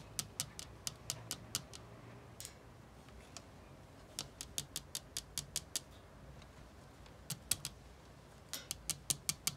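Long acrylic fingernails tapping against a metal window grille: runs of quick, sharp clicks, about four or five a second, in three bursts with short pauses between.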